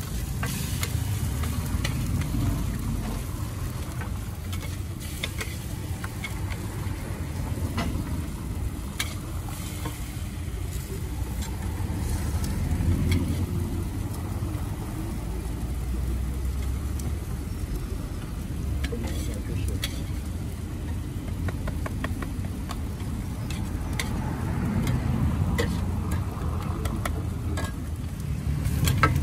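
Burger patties and buns frying on a flat-top griddle, with scattered clicks and scrapes of a metal press and spatula on the plate, over a steady low rumble.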